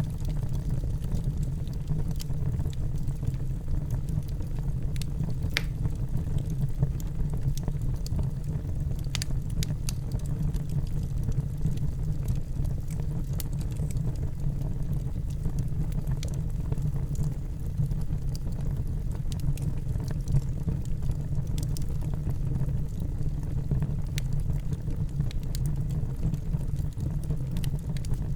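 Fire burning in a fireplace: a steady low rumble of flame, with scattered sharp crackles and pops at irregular moments.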